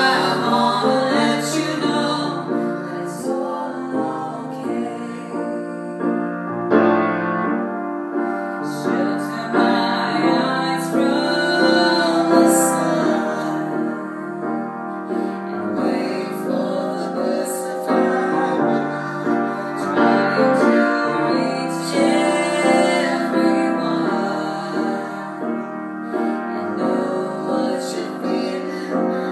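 A woman and a man singing a song together, accompanied on piano.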